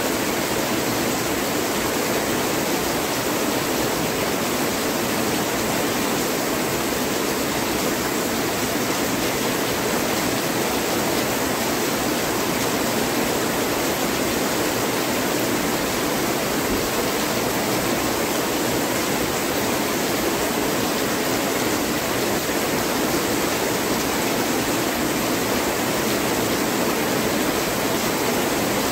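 Heavy rain pouring down, a steady unbroken hiss that keeps the same level throughout.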